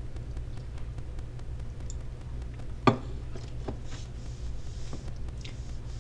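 Painting tools handled at the palette: a sharp knock about three seconds in, then a few lighter taps and a soft scrape as a palette knife is loaded with paint, over a steady low hum.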